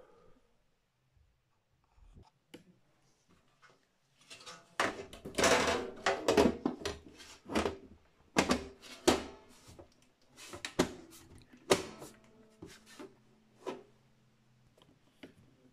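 Side cover of a Dell OptiPlex 790 desktop case being slid onto the chassis and closed. After a few seconds of quiet there is a scraping slide, then a string of sharp clicks and knocks as the cover is pushed home.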